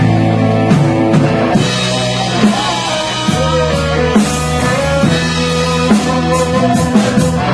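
Live band playing an instrumental passage without vocals: drum kit and guitar over held chords.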